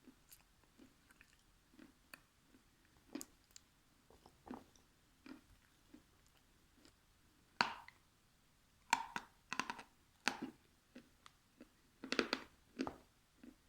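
A person chewing food close to the microphone, with irregular wet smacks and mouth clicks, sparse at first and louder and more frequent in the second half.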